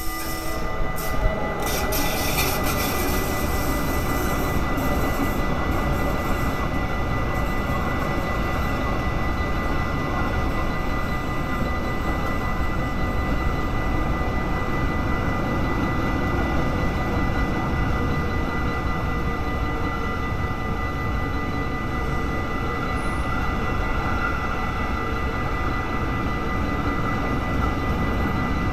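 A Bombardier TRAXX electric locomotive passes close by, followed by a long coal train of hopper wagons rolling steadily past, the wheels rumbling on the rails. There are a few sharp clatters about one to three seconds in as the locomotive goes by. Steady ringing tones, most likely the level-crossing warning bell, run underneath throughout.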